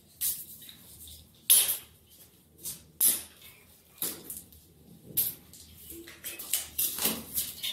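Foam packing wrap being pulled and cut off a bicycle frame with scissors: irregular bursts of rustling and scraping, a second or so apart.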